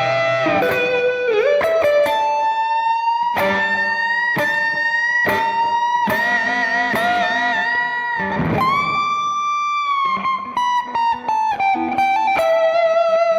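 Electric guitar through a clean amp tone with an overdrive pedal, playing a single-note melodic lead: picked notes held with vibrato, one bent up and held about eight seconds in, then quicker notes near the end.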